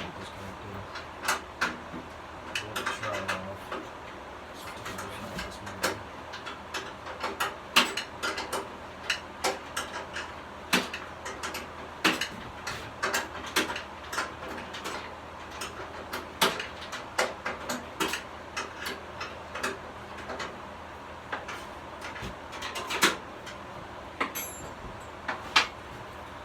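Hand tools and metal engine parts clinking and knocking irregularly during teardown of an air-cooled VW engine, over a low steady background hum.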